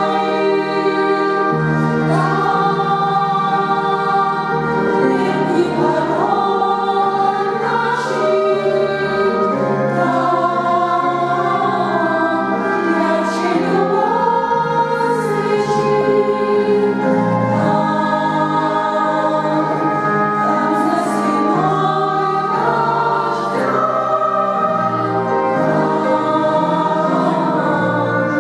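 Church choir singing, with held chords that change every second or two.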